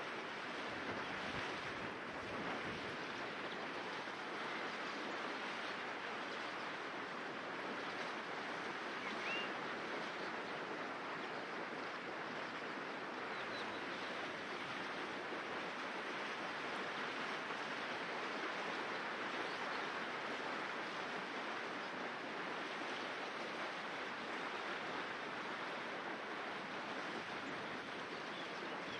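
Shallow river running over a stony bed: a steady rush of moving water.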